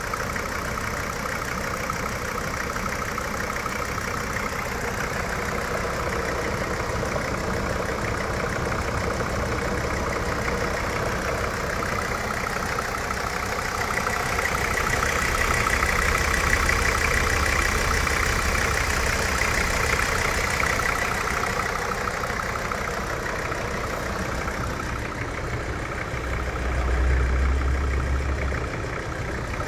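An engine running at idle with a strange knock. It grows louder for several seconds in the middle and again briefly near the end.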